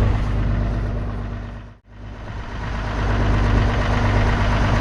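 Heavy engine idling steadily. The sound fades out to silence a little under two seconds in and then rises back up.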